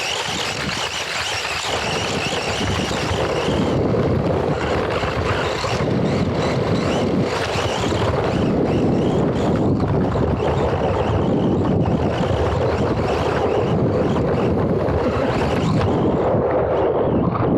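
Radio-controlled car driving over dirt, heard from a camera mounted on it: a steady rush of wind on the microphone over the rumble of the chassis and tyres, with a wavering high whine in the first few seconds.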